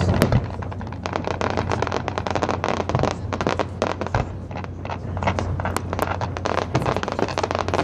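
Fireworks crackling and popping in a dense, irregular stream of rapid small bangs, over a steady low hum.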